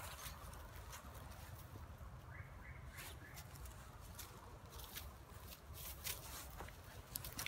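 Footsteps and bodies pushing through dry fallen leaves, grass and pine brush in the forest undergrowth, with scattered crackles and twig snaps and a low rumble of the camera being handled on the move.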